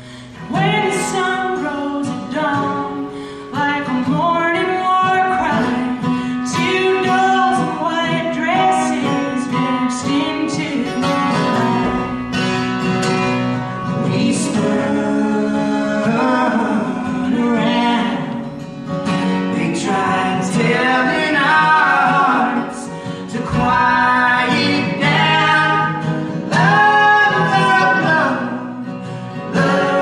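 A woman singing a folk song, accompanied by acoustic guitar.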